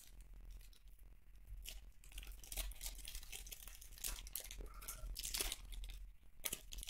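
A foil trading-card pack being torn open and peeled apart by hand, its wrapper crinkling and crackling in quiet, irregular bursts.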